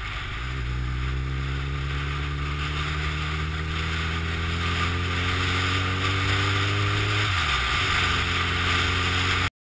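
Honda CBR1100XX Blackbird's inline-four engine pulling under acceleration, its pitch climbing slowly through each gear, with gear changes at the start and about seven and a half seconds in. Wind rushes over the microphone, growing louder with speed, and the sound cuts off suddenly near the end.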